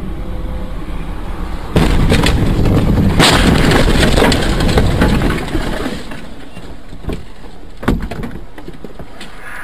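Car crash heard from a dashcam inside the car: steady road noise, then a sudden loud impact about two seconds in, followed by a few seconds of loud rumbling and scraping that fades, and two short knocks near the end.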